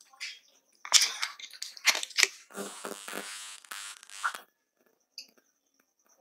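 Plastic water bottle being opened, with sharp crackles and clicks from the cap and bottle, then about a second and a half of sloshing and gulps as water is drunk from it.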